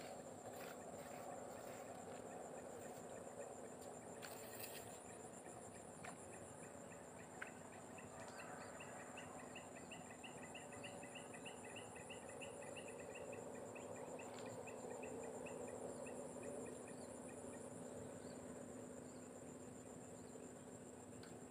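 Faint, steady high-pitched insect chorus, trilling without a break. In the middle a run of quick repeated chirps, about four a second, rises over it and fades away.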